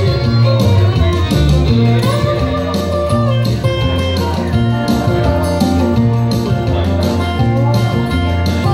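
Live country band playing an instrumental break: a plucked guitar leading over a steady bass line.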